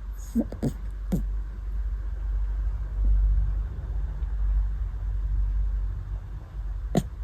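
Shiba inu–corgi mix puppy snoring with a steady low rumble. A few short sharp sounds come in the first second or so, and another near the end.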